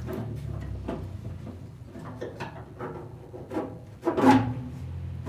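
Parts of a steel pellet grill being handled: scattered knocks and clicks, with one louder clunk about four seconds in.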